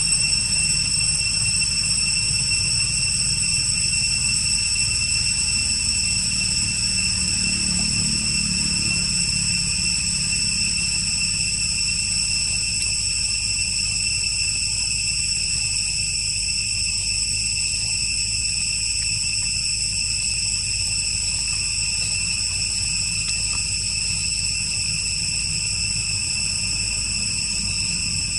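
Insects droning steadily, several high constant pitches held without a break, over a low rumble.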